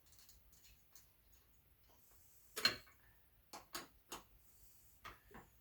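Sparse, quiet clicks and ticks of tools and metal hardware being handled while a cross-threaded bolt is worked back off a wagon. The clearest click comes a little before halfway, followed by a few smaller ticks.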